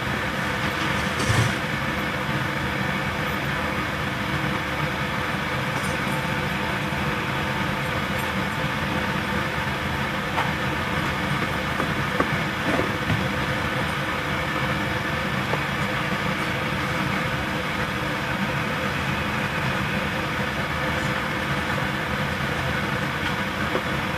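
Interior of a JR Central 313-series electric train standing at a station, its air conditioning running loudly and steadily. A short knock about a second in.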